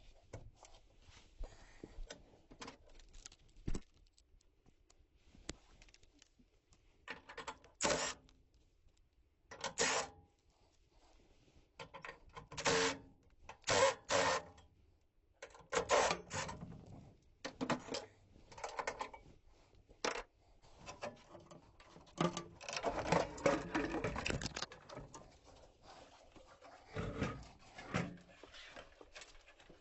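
Irregular clinks, clatters and rattles of hand tools and metal parts being handled, in uneven bursts with a longer run of clatter about two thirds of the way through.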